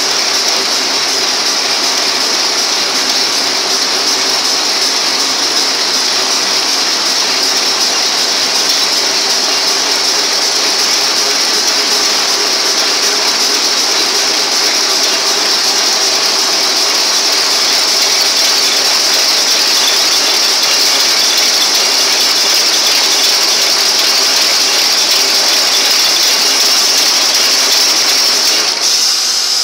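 W&D high-speed envelope-making machine running: a loud, continuous rapid mechanical clatter from its rollers and linkages, with a steady high hiss over it.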